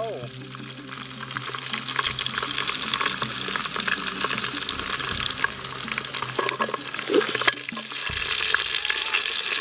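Pieces of softshell turtle meat sizzling and crackling in hot oil in a pan, just after being added.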